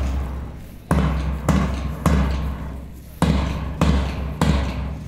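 Marching drum beating the cadence for a parade march past: three deep strokes about 0.6 s apart, a short pause, then three more. Each stroke rings on and fades before the next.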